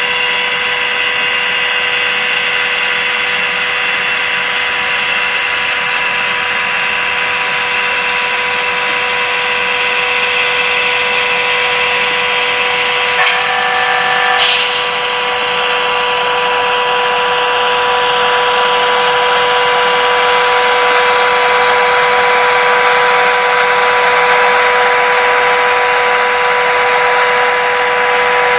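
HO-scale model TGV running steadily on its track, its small electric motor giving a constant whine over the rattle of wheels on rails, with a brief click and change in tone about halfway through.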